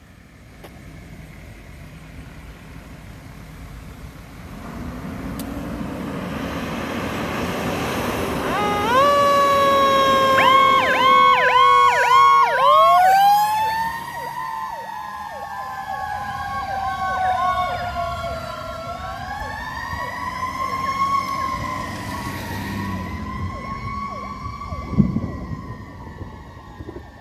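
Fire engine passing on an emergency response: its engine noise builds as it approaches, then its sirens sound, one yelping in rapid chirps over a steady tone while another wails, sliding up and coasting slowly down in pitch. The sirens are loudest as the truck goes by, then fade into the distance, with a brief sharp knock near the end.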